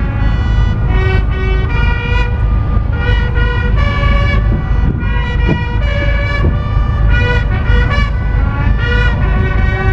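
Bugles sounding the call for the lowering of the naval ensign at sunset, a string of held brassy notes with several pitches overlapping, as from more than one ship sounding together. A steady low rumble runs underneath.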